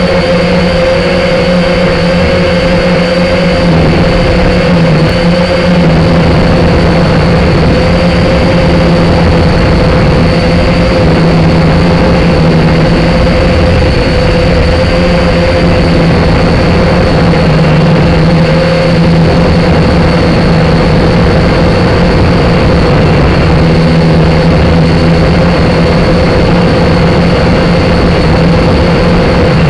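Syma X5C quadcopter's small electric motors and propellers giving a loud, steady buzzing whine, heard close up through the drone's own onboard camera microphone, with only a slight waver in pitch as it holds its climb.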